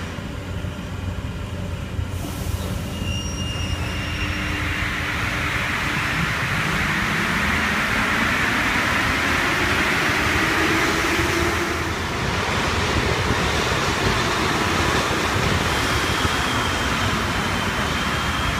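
Paris Métro train pulling out of the platform, its running noise building to a loud rush over several seconds in the tunnel station. A second train then comes in, with a faint high squeal from the wheels near the end.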